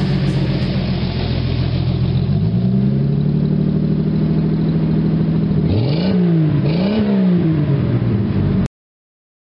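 1975 Valiant's slant-six engine running at steady revs, climbing once about two seconds in, then revved up and back down twice near the end. The sound cuts off suddenly.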